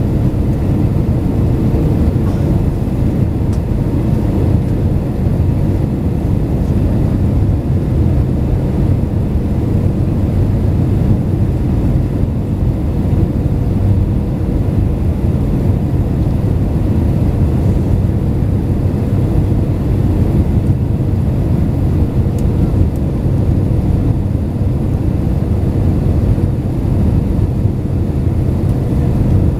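Steady low rumble of engines and rushing air inside an airliner's cabin during the flight into Narita, with a faint steady hum on top.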